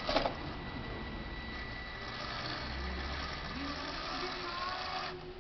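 Losi Mini Rock Crawler's small electric motor and gear drive whirring steadily with a thin high whine. It comes in with a short knock as the truck drops off the obstacle onto the tabletop, and the motor stops abruptly near the end.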